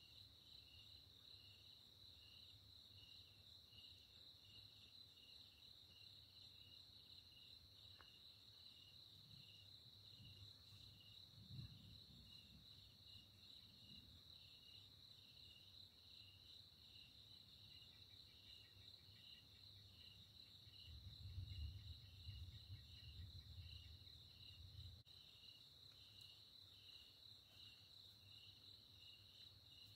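Faint night crickets: a steady high trill with a pulsing chirp just below it. A low rumble of distant thunder swells about twenty seconds in and fades a few seconds later.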